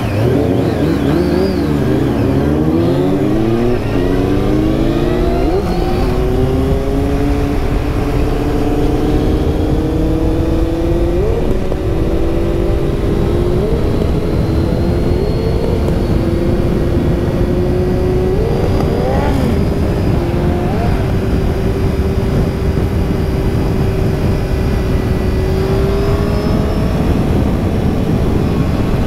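Sport motorcycle engines accelerating from a standstill, the revs climbing and dropping back with each upshift, then settling into a steady cruise with a few brief gear-change dips, over constant wind rush on the helmet camera.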